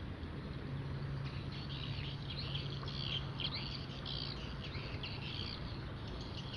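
Small birds chirping in a rapid twittering chorus for a few seconds, over a steady low hum and background noise.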